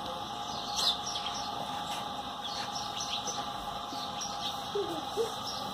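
Birds chirping now and then, with short high calls about a second in, around three and four and a half seconds, and two short falling calls near the end, over a steady background hum.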